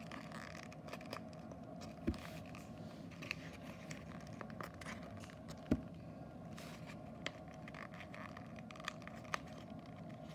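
Folded printer paper of an origami cube flasher rustling and scraping as it is twisted open and closed by hand, with a few sharp taps, the loudest about two seconds and nearly six seconds in, over a steady background hum.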